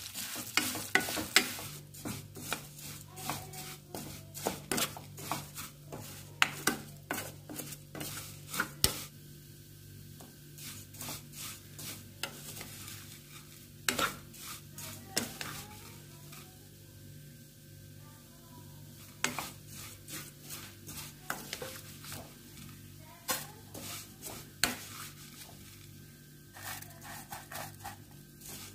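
Vermicelli roasting in ghee in a pan, stirred and tossed with a spatula: irregular clusters of light clicks and scrapes against the pan over a faint sizzle, with quieter pauses between bouts of stirring. A faint steady low hum runs underneath.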